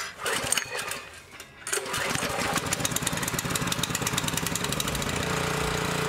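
Honda GX200-clone 200cc single-cylinder four-stroke engine starting, catching about a second and a half in and then running steadily. It runs without the idle surge, its carburetor freshly cleaned.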